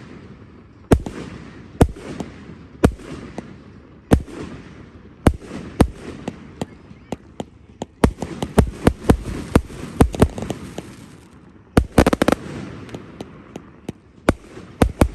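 Fireworks display: shells bursting with sharp bangs, about one a second at first, then a quick run of bangs and a dense cluster of rapid cracks near the end.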